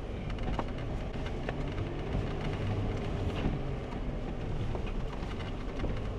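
Jeep driving slowly along a dirt off-road trail: a steady low engine and drivetrain rumble, with scattered light clicks and knocks from the rough ground.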